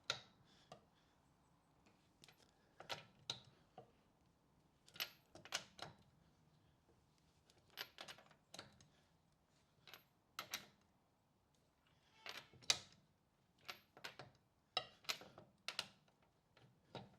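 Faint metallic clicks and clinks of a socket and bar being fitted to and tightened on a car's wheel nuts. They come in short clusters every second or two as the wrench moves from one nut to the next.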